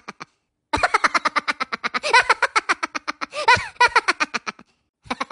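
A person laughing: a long run of rapid, even ha-ha pulses rising and falling in pitch.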